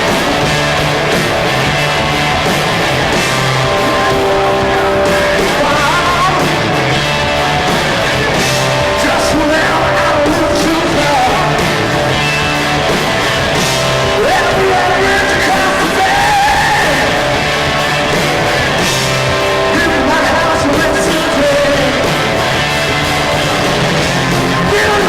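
Hard rock band playing live: electric guitars, bass and drums, with a lead guitar line sliding up and down in pitch.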